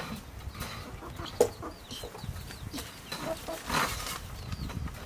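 Domestic chickens clucking, with short high chirps throughout and a sharp click about a second and a half in.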